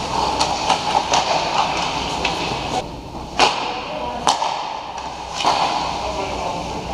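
Ice hockey play: skates scraping the ice and sticks clacking, with two sharp knocks of stick on puck, about three and a half and just over four seconds in.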